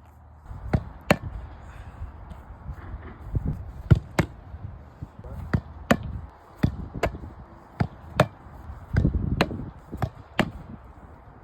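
Irregular sharp taps and knocks, about one or two a second, with low thuds under them: goalkeeper gloves and their packaging being handled.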